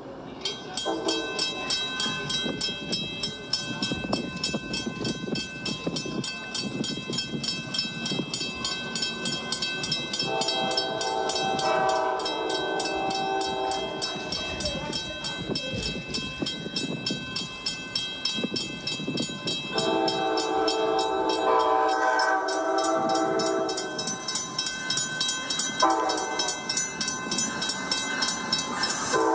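Multi-note train horn sounding long chord blasts about ten seconds in, again about twenty seconds in, and near the end, over a fast, even clicking and a steady high whine.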